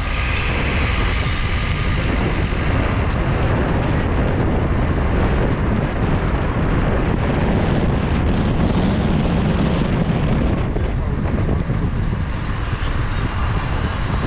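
Steady rush of road and wind noise heard from a moving car, with surrounding traffic; the low rumble swells briefly about two-thirds of the way through.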